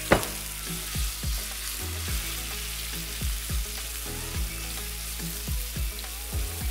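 Chicken pieces frying in hot oil in a skillet with a steady sizzle, turned over with tongs, with a sharp knock just after the start. Soft background music with a low thumping beat runs underneath.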